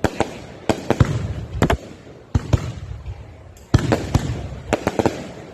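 Aerial fireworks bursting overhead: sharp bangs in irregular clusters, one to three at a time, each trailing off in a short echo.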